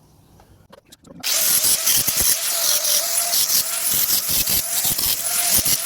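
Angle grinder switched on about a second in, then running with a steady whine and a loud, harsh cutting hiss as it cuts off nails sticking out of salvaged timber. The whine dips slightly now and then as the disc takes the load.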